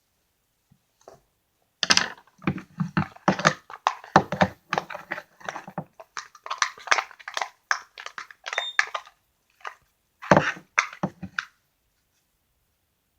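Glue slime being stirred and folded with a mixing tool in a container: a run of irregular sticky clicks and knocks that starts about two seconds in, pauses briefly, then stops over a second before the end.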